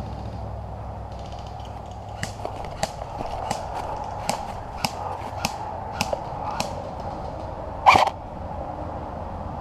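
Airsoft rifle shots fired one at a time, about nine sharp cracks a little over half a second apart, then one louder, slightly longer crack a couple of seconds later.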